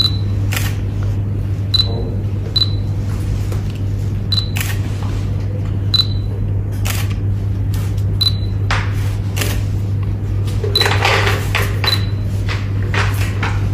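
Camera shutter firing again and again at uneven intervals during a photo shoot, about ten shots, many with a short high beep. A steady low hum runs underneath.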